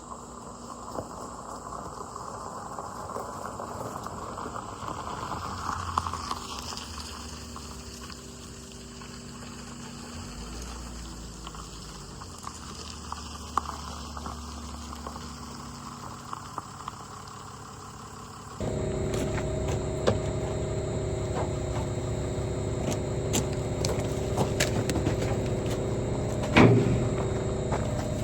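Motor vehicle engine running, quiet and rumbling at first; about two-thirds through it suddenly gets louder with a steady droning hum, and there is one sharp knock near the end.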